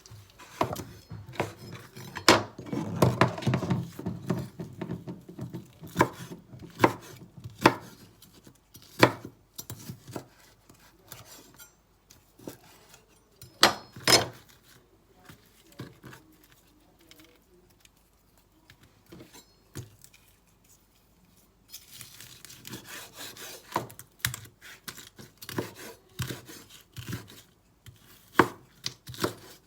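Kitchen food-preparation sounds on a wooden cutting board: scattered knocks and taps of utensils with rubbing and scraping. They are busiest a few seconds in and again after about twenty-two seconds, with a quieter spell in between.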